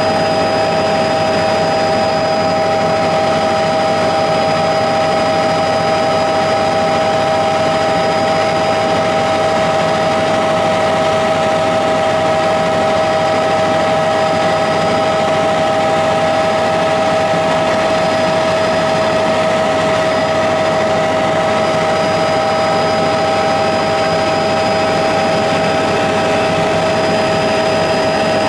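Aircraft engine running steadily in flight: a constant loud drone with a steady whine held at an even pitch.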